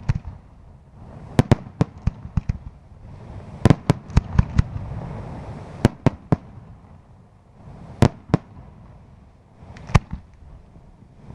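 Aerial firework shells bursting overhead: a string of sharp bangs, some coming in quick clusters of two to five, over a continuous low rumble.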